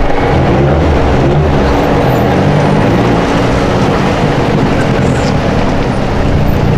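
Car engine running loudly, its low note wavering up and down.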